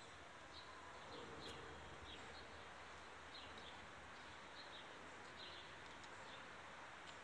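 Faint small birds chirping, short high chirps about every half second over a steady low hiss.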